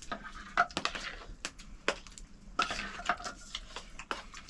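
Metal dishes and utensils clinking and knocking together in quick, irregular strikes, some with a brief ring.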